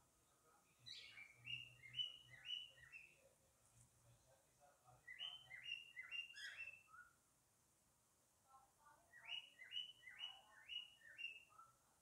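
Male cockatiel calling to his mate: three bouts of about five quick chirping notes each, with pauses of a second or two between bouts.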